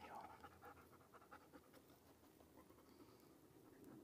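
Faint panting of a German shepherd dog.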